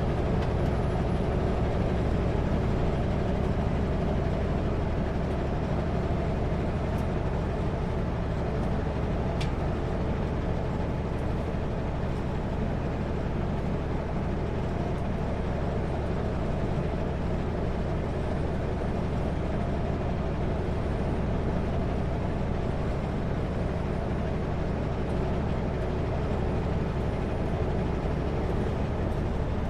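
Kenworth W900L semi truck cruising at highway speed: a steady engine drone and road noise.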